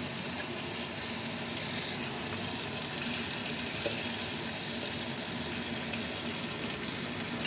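Small whole fish shallow-frying in a little hot oil in a wok: a steady sizzle. The fish have just been turned and are frying on their second side.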